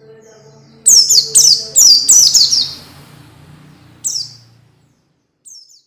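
White-eye (pleci) song used as a training recording: a quick run of about five high chirps, each falling sharply in pitch, then a single chirp a little later and a faint one near the end.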